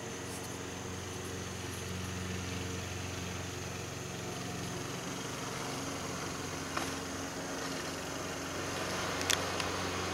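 Steady low mechanical hum, like a motor running somewhere in the background, with two short light clicks near the end.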